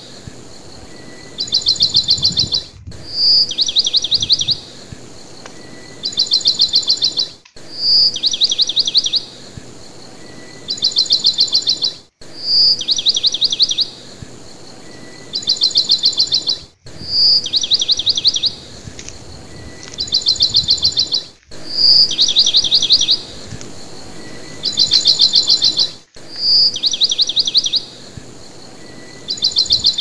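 A short recording of songbird chirping played on a loop: about every four and a half seconds, a single high note followed by two bursts of rapid, high trilled chirps, each repeat ending in a brief dropout.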